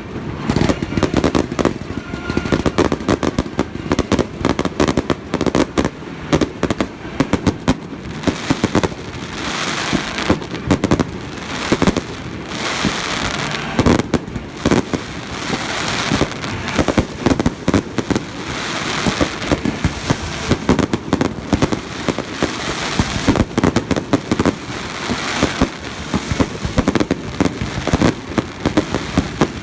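Fireworks display: a dense, continuous barrage of exploding aerial shells, many bangs a second over steady crackling.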